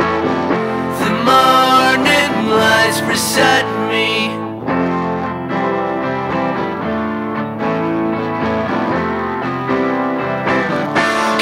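Indie rock band playing an instrumental passage of a song, with guitars to the fore.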